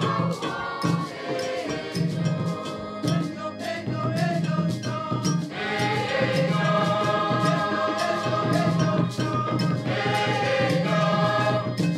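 Mixed youth choir singing in harmony over a steady percussion beat. The voices swell into a fuller held chord about six seconds in.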